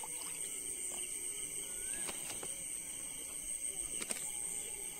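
Crickets and other night insects chirring steadily at a high pitch, with a few faint clicks about two and four seconds in.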